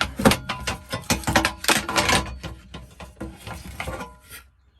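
Rapid clicking, clattering and rattling of small plastic and metal parts being handled, stopping abruptly near the end.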